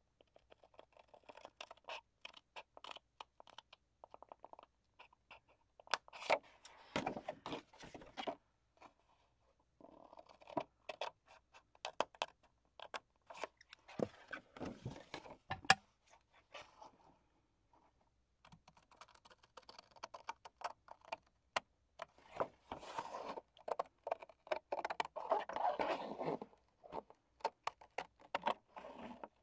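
Scissors snipping through a cardstock hanging file folder: irregular short crisp snips, with the paper rustling as the folder is handled and turned between cuts.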